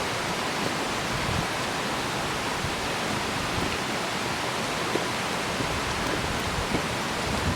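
Steady rushing of a waterfall, an even wash of falling water with no pauses.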